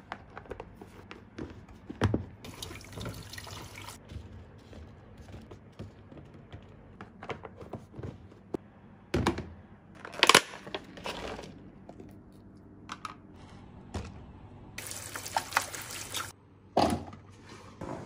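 Plastic food-storage containers, lids and a plastic clamshell being handled, with knocks and clacks, the sharpest about ten seconds in. Two short spells of tap water run, one a few seconds in and one near the end.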